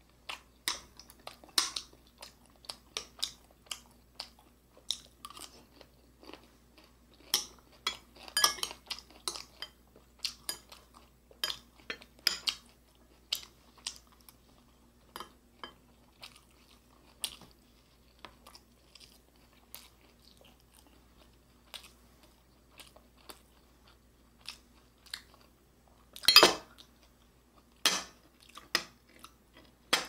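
Close-miked chewing and wet mouth sounds of someone eating fried beef and rice, in short irregular smacks and clicks. Chopsticks tap against the dishes now and then, with a few louder knocks near the end.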